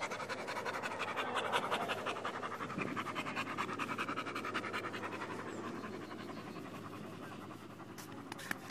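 Pit bull-type dog panting close to the microphone, a fast, even rhythm of breaths that grows fainter near the end.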